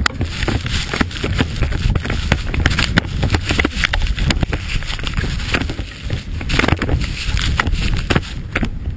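Snowmobile running through deep powder snow under heavy rumbling wind buffeting on the hood-mounted camera's microphone, with frequent sharp knocks and crackles.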